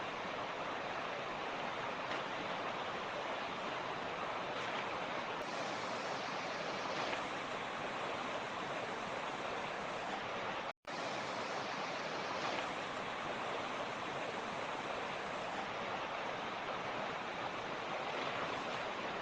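Mountain torrent rushing steadily over rocks, an even dense wash of running water. The sound cuts out completely for an instant about halfway through, then resumes unchanged.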